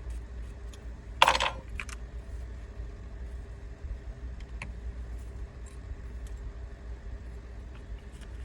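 Small parts of an airsoft rifle's mechanism block and mag catch being handled and fitted together: scattered light clicks, with one louder rattle about a second in, over a steady low hum.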